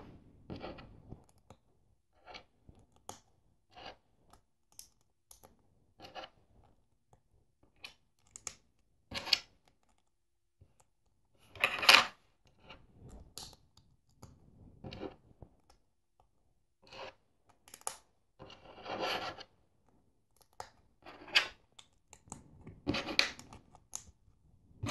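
LEGO plastic pieces being handled and pressed together: scattered short clicks, clacks and light scrapes of plastic on plastic and on the tabletop, loudest about 12 seconds in and again near the end.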